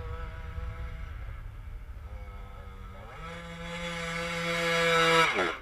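Off-road motorcycle engine running at high revs. The pitch rises at the start, steps up again about three seconds in and grows louder, then drops away sharply near the end.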